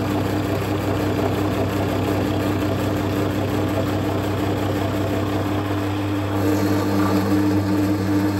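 Drill press running steadily with a constant motor hum while a wide bit bores out a hole in a small wooden template block.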